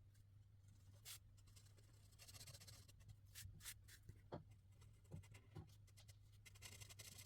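Faint marker drawing on paper: short, scratchy strokes of the felt tip with a few sharper taps, over a low steady hum.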